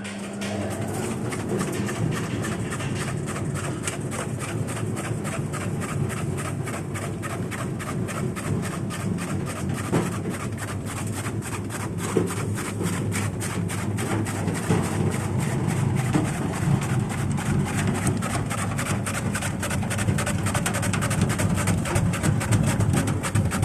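A motor-driven porang (konjac tuber) slicing machine starting up and running steadily, with a rapid, even clatter over a low hum.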